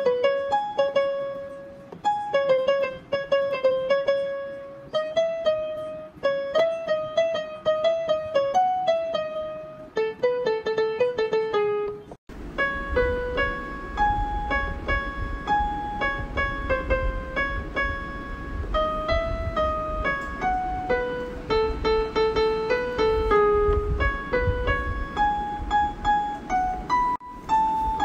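Yamaha PSS-F30 portable keyboard played one note at a time, a slow, simple melody. About twelve seconds in it stops abruptly, then the melody starts again with a low rumble underneath.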